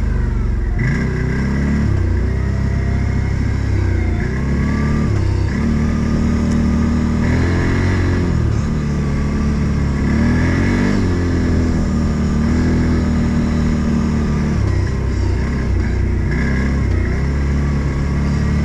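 Engine of an Odes 800 side-by-side UTV running under load off-road, its pitch rising and falling repeatedly as the throttle changes.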